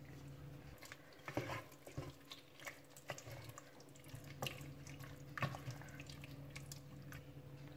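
Wooden spatula stirring thick beef masala and yogurt in a steel pressure cooker: faint wet squelches and light irregular taps against the pot, over a faint steady hum.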